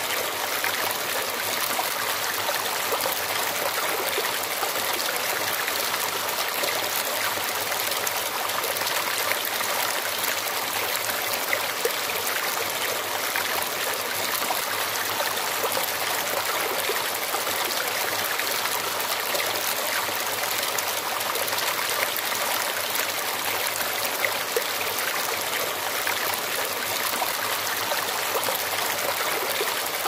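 Shallow stream flowing over river stones, a steady, unbroken babble and trickle of water.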